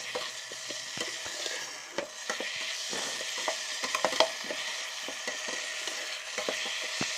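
Onion, tomato and masala mixture sizzling as it fries in an electric kettle, stirred with frequent short clicks and scrapes of the utensil against the pot.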